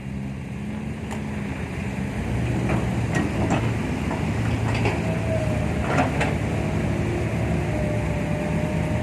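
Heavy diesel earthmoving machinery running, its engine growing gradually louder, with scattered metallic clanks and knocks.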